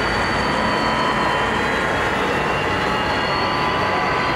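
Model diesel locomotives running along a layout track: a thin electric-motor whine that dips and then rises in pitch, with steady background hum.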